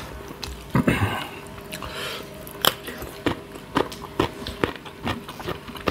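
Close-up eating sounds: crisp bites into a raw cucumber slice and wet chewing of food eaten by hand, heard as a run of short crunchy clicks about two a second.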